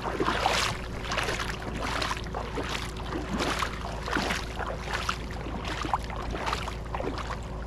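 Footsteps wading through shallow river water, each step a splash, about two a second.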